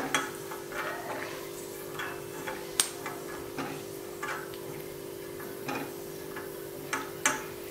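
Silicone spatula scraping and tapping in a non-stick kadai as roasted peanuts are scooped out of the ghee, giving scattered light clicks a second or two apart over a steady low hum.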